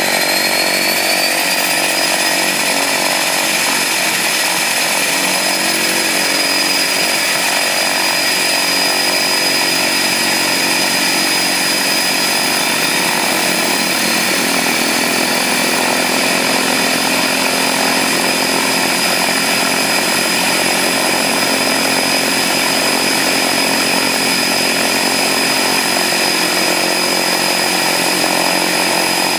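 Beechcraft 99's Pratt & Whitney PT6A turboprop engines running on the ramp: a loud, steady turbine whine with propeller buzz. The high whine rises a little over the first two seconds, then holds level.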